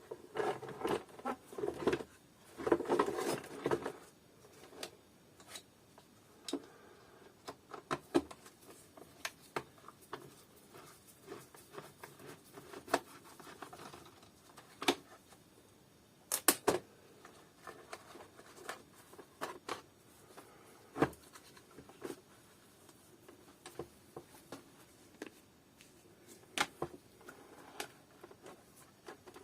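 Parts of a vacuum cleaner being handled during disassembly: a few seconds of dense rustling and clicking, then scattered sharp clicks and taps.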